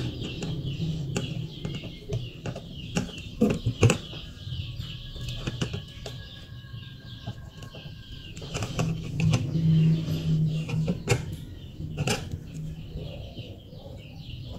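Scattered light clicks and taps from hand work on a circuit board and its wires during soldering, over a continuous high chirping in the background.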